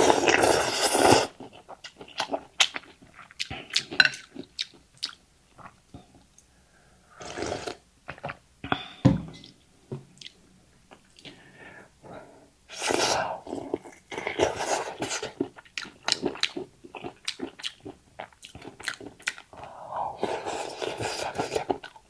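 Close-miked eating sounds of rice noodles: several long slurps of about a second or two each, with wet chewing and lip-smacking clicks in between.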